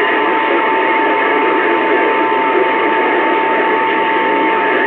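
CB radio receiver hissing with loud band static between transmissions, a steady whistle tone held over the noise.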